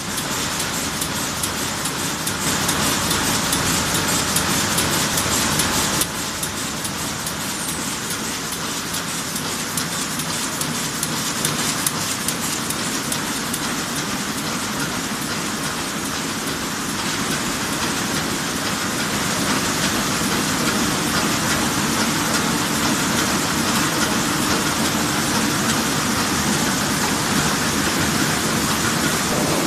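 Heidelberg Speedmaster SM 102 sheet-fed offset printing press running: a loud, steady, dense machine clatter and rush, dipping slightly about six seconds in.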